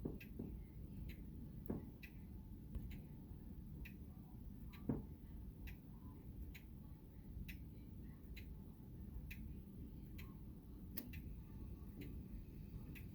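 King Arthur grandfather clock ticking steadily, a little under two ticks a second, with no chime sounding. A few soft low thumps sound among the ticks, the loudest about five seconds in.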